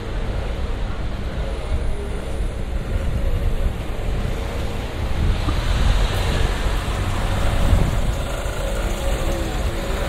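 Town-street traffic: cars passing slowly close by, over a steady low rumble, with faint voices of passers-by near the end.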